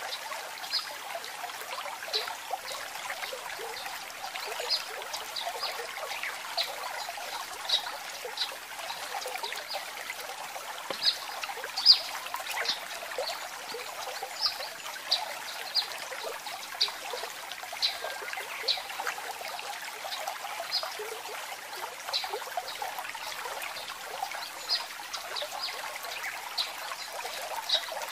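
Water trickling steadily, with short high plinks scattered irregularly through it and one louder plink near the middle.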